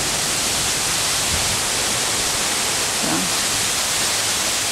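Steady rush of water from an ornamental plaza waterfall: an even hiss with no breaks.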